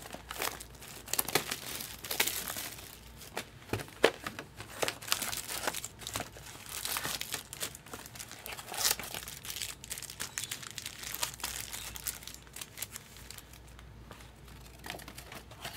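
Foil-wrapped 2022 Topps Chrome Cosmic card packs and box packaging crinkling and rustling as a hobby box is opened and its packs are lifted out and stacked, with many irregular light clicks and taps.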